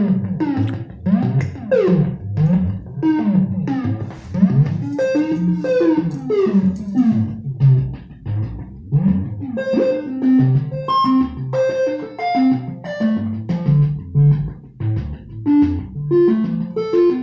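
Keyboard synthesizer music played live: a quick run of short plucked notes, about three a second, many sliding down in pitch, over low repeating bass notes. From about ten seconds in, the notes turn steadier and higher.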